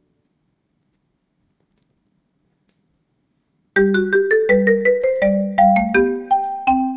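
Near silence for about the first three and a half seconds, then background music starts abruptly: a quick melody of short struck notes, about four a second, low and high notes alternating.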